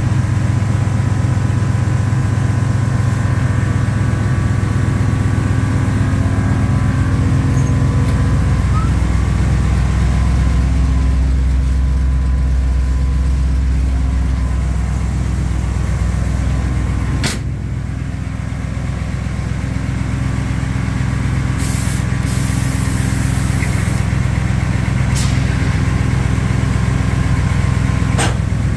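An engine running steadily with a low, even hum. A sharp click comes about 17 seconds in, after which it runs a little quieter, and a short high hiss follows a few seconds later.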